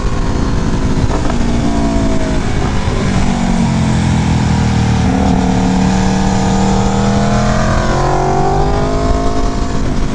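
Sport motorcycle engine and exhaust under way, its note falling off and then climbing again a few times as the revs change, over a steady rush of wind noise.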